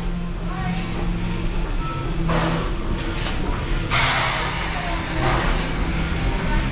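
Narrow-gauge steam locomotive of the Walt Disney World Railroad running slowly, a steady low rumble broken by several loud rushes of steam hiss.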